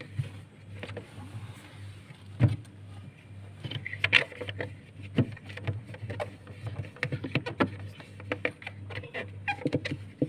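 Irregular knocks, clicks and light rattles of objects being handled, over a steady low hum, with one louder thump about two and a half seconds in.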